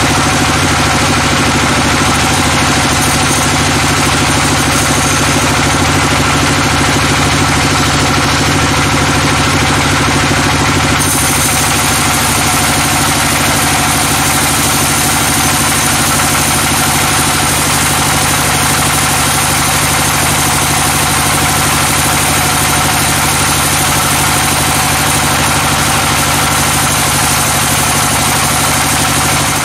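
Large band sawmill running steadily, its blade cutting lengthwise through a teak log, a loud continuous machine drone. About eleven seconds in a brighter, higher hiss joins and stays.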